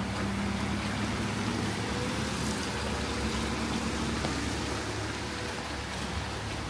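Rainy street ambience: a steady hiss of rain and wet traffic, with a vehicle's low, steady hum through the first few seconds that then fades.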